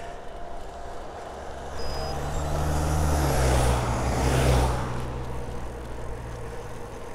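A car approaching and driving past, its engine hum and tyre noise building to a peak about four seconds in and then fading away.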